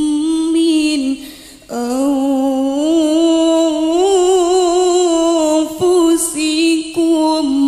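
A woman's voice reciting the Quran in the melodic, sung style of tilawah, holding long ornamented notes that waver in pitch, with a brief pause for breath about a second in.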